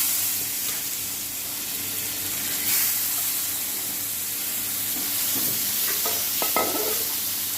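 Small chapila fish frying in hot oil in a pan, a loud steady sizzle that starts suddenly as the last of the fish go in and swells again about three seconds in. A few light knocks of a utensil against the pan come near the end.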